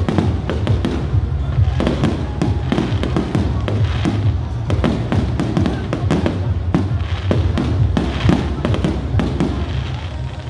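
Aerial firework shells bursting in quick succession: a dense run of sharp bangs and crackles.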